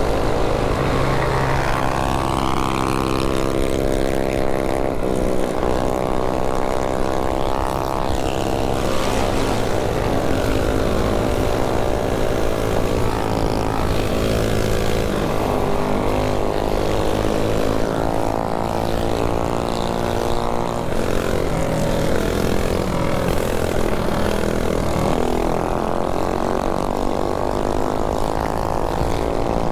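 Several mini bike engines running together, their pitches rising and falling as riders throttle on and off.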